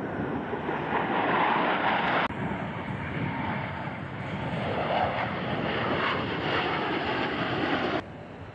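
Jet engine noise from Blue Angels F/A-18 Super Hornets flying past, a steady rushing noise with sudden jumps in level about two seconds in and near the end.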